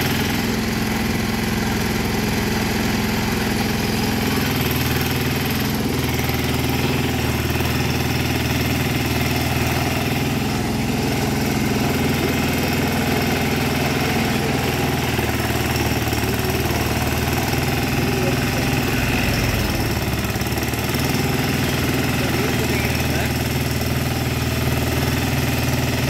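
Engine of a compact towable backhoe running steadily while its hydraulic arm digs, its note shifting slightly a few times.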